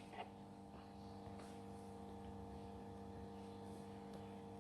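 Faint steady electrical hum from the running incubator equipment, with one light click just after the start.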